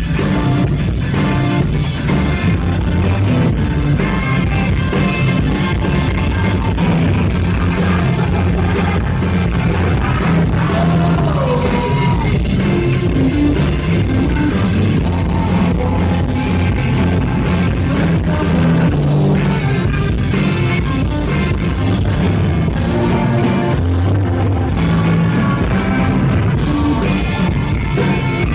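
Live rock band playing loud in a concert hall: drum kit, bass and electric guitars, with some singing.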